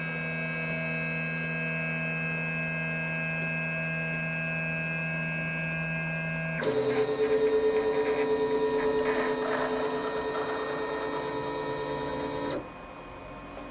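Flashforge Dreamer NX 3D printer's stepper motors whining steadily as the build plate rises. Then, about halfway in, a louder, pulsing whine at a different pitch as the print head travels across the gantry. It cuts off suddenly near the end, leaving a fainter steady hum.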